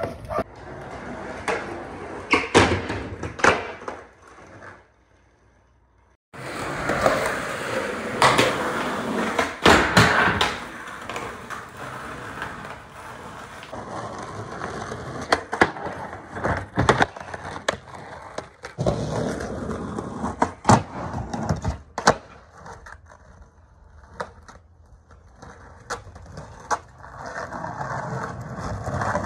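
Skateboard wheels rolling on rough concrete, with many sharp pops and clacks of the board as tricks are popped and landed. The sound drops out for about two seconds a few seconds in.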